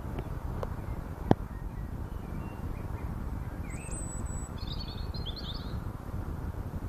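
A bird chirps several times, a high thin note followed by a quick run of chirps about four seconds in, over a steady low rumble. There is a single sharp knock about a second in.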